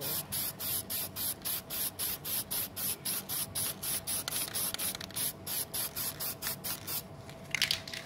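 Aerosol can of flat black spray paint hissing in rapid pulses, about five a second, as a final top coat goes onto a car side mirror; the spraying stops about a second before the end.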